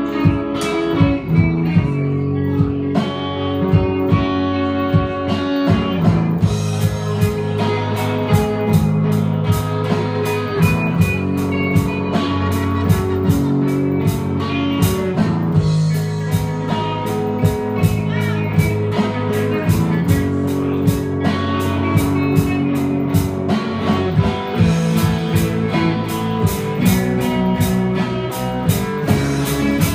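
Live blues played by a small band: amplified electric guitar over a drum kit keeping a steady beat.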